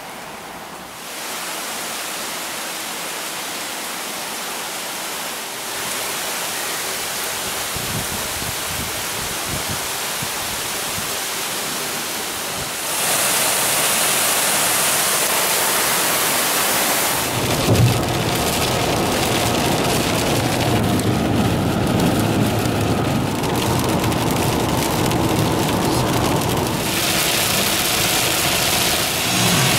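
Heavy rain falling on wet pavement and parked cars, growing louder in steps into the hard, even hiss of a downpour. Then, inside a moving car, rain pelting the windshield and roof over the rumble of road and engine, with one sudden loud thump a little past halfway.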